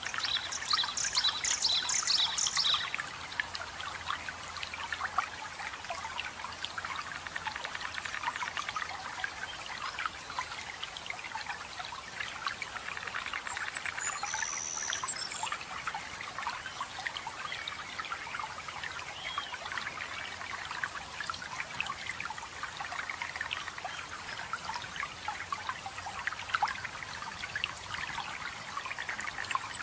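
Running water trickling and splashing steadily. Over it a bird gives a quick series of about six high chirps near the start and a single short high call about halfway through.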